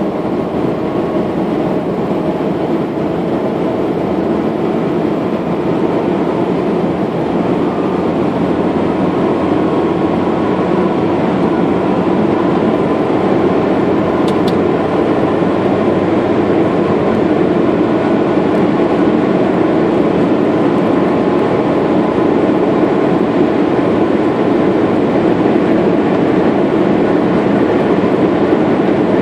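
Steady rumble of road and engine noise inside the cabin of a moving vehicle, growing slightly louder over the stretch.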